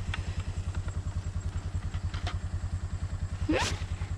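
Kawasaki Mule 610 utility vehicle's single-cylinder engine idling with a steady, rapid pulse of about a dozen beats a second. A few faint clicks, and a short rising sound about three and a half seconds in.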